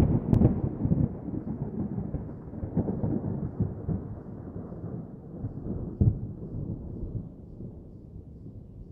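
Rolling thunder sound effect: a low rumble with scattered crackles, loudest near the start and slowly fading away.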